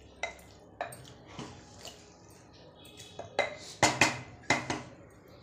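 A spoon stirring a thick potato and bean curry in an open pressure cooker, knocking and scraping against the pot's metal rim and sides: a few spaced knocks, then a quicker run of louder knocks about three to five seconds in.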